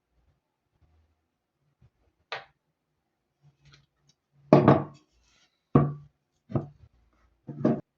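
A handful of separate knocks and clatters of hard objects being handled: one short one about two seconds in, then four louder ones in quick succession over the second half.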